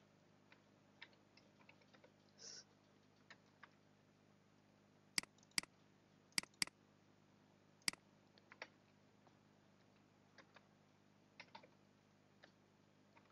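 Scattered clicks of a computer mouse and keyboard while files are renamed and folders opened, including a quick double-click about six and a half seconds in, over a faint steady hum.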